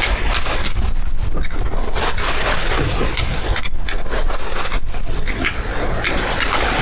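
Loud, steady rushing noise of a yacht under way at sea, wind and water, which drops out briefly twice in the middle.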